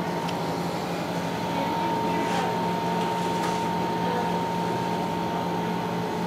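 A steady machine hum with a constant whine, as from air-handling equipment, with a few faint soft clicks a little past the middle.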